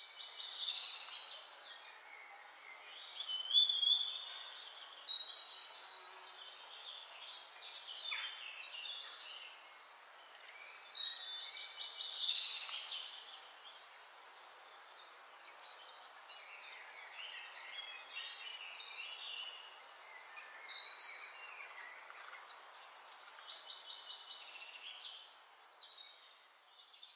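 Small birds chirping and twittering in groups over a faint steady hiss, loudest about four seconds in, twelve seconds in and near twenty-one seconds. There are light rustles and squishes from plastic-gloved hands working mashed potato.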